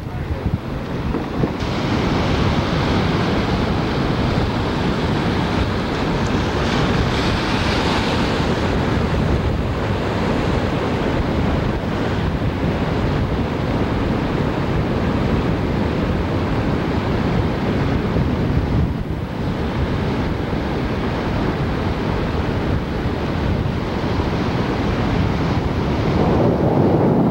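Ocean surf breaking on the beach, mixed with steady wind buffeting the camcorder microphone.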